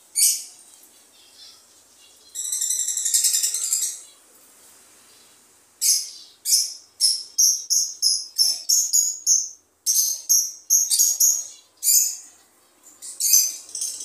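Lovebirds calling: a sharp shriek, then a rapid buzzy chatter lasting about a second and a half, then a run of a dozen or more short, shrill shrieks at about two a second, with a couple more near the end.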